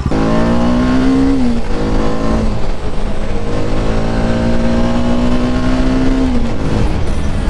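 Motorcycle engine pulling hard in gear, its pitch climbing slowly, then dropping at an upshift about one and a half seconds in and again near the end.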